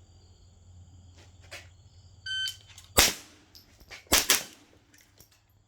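A shot timer gives a short electronic start beep. About 0.7 s later an AR-15 rifle fitted with a .22 LR conversion kit fires one shot, then a quick pair about a second later, for a string of roughly 1.8 seconds inside a 2-second par. Faint crickets chirp steadily underneath.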